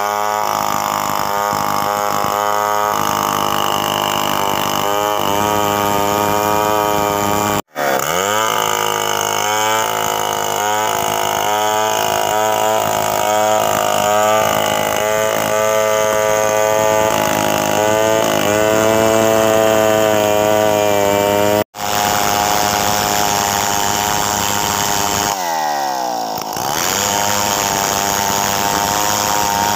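Stihl two-stroke chainsaw running at high revs under load as it rips a squared log lengthwise into boards, the engine pitch wavering as the chain bites. Twice the sound cuts out for an instant, and near the end the revs dip and climb again.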